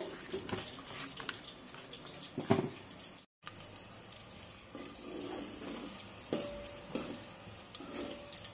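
A metal spoon stirring and scraping through wet chilli masala paste in a steel bowl, with a sharp clink about two and a half seconds in. After a brief cut it gives way to a ladle stirring onions and vegetables in a metal pot, knocking against the pot now and then.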